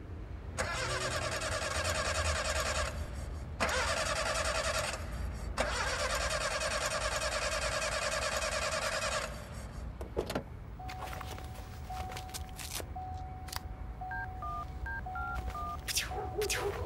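Three long bursts of harsh, rapid rattling over a low rumble. After them comes a steady tone, then near the end a short run of telephone keypad beeps at changing pitches as a number is dialled.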